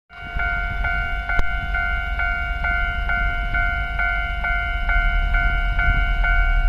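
Railway level-crossing warning bell ringing steadily, about two strikes a second, over a low rumble. It rings with the barriers down and the lamps flashing, the warning that a train is approaching the crossing.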